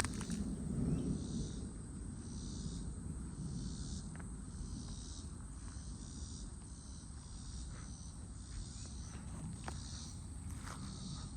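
Insects chirping in a pulsing chorus, swelling about once a second, over a low rumble that swells briefly about a second in.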